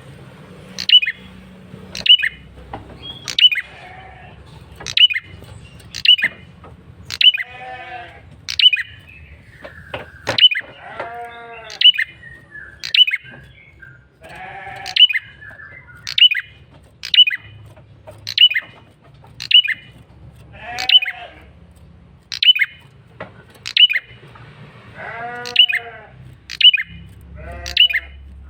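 Male prenjak kepala merah singing a lure call: a sharp, high note sweeping downward, repeated about once a second. Several times a lower, wavering call sounds between the notes.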